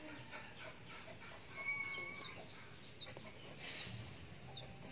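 Faint birds chirping in the background, short high downward chirps repeating about every half second, with one brief held whistle about two seconds in. Near the end comes a short rustle of dry malunggay leaves being handled.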